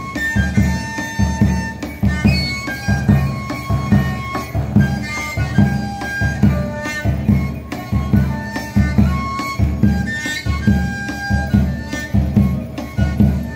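Live traditional Andean folk music: a high wind instrument playing a melody in held notes over a bass drum beating steadily about twice a second.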